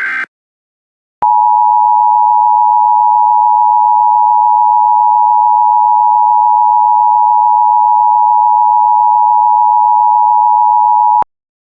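Emergency Alert System two-tone attention signal, two steady tones just under 1 kHz sounding together for about ten seconds, starting about a second in and cutting off sharply just before the end. The last fraction of a second of a buzzy digital header burst ends right at the start.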